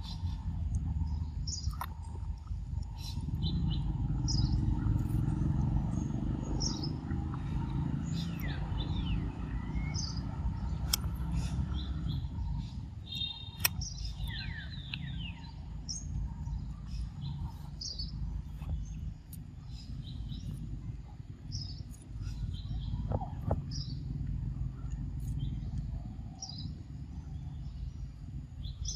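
Small birds chirping, with many short, high chirps and quick gliding calls scattered throughout, over a steady low rumble and a couple of sharp clicks.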